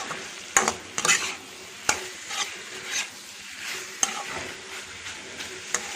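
Prawns sizzling as they sauté in oil in an onion-tomato masala, with a spoon stirring and scraping the pan every second or so.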